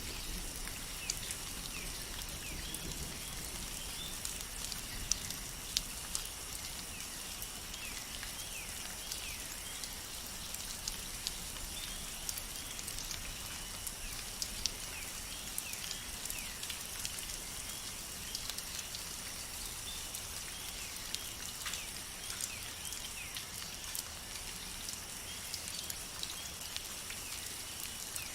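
Steady rain with many sharp individual drops striking close by, over a continuous high-pitched ringing drone.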